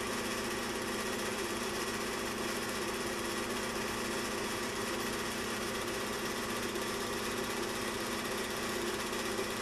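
Film projector running steadily: an even mechanical whir with a fast, regular flutter underneath.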